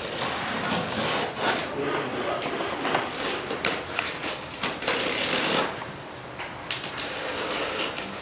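Box cutter blade slicing and scraping along packing tape on a cardboard box, in a series of short strokes with one longer cut about five seconds in.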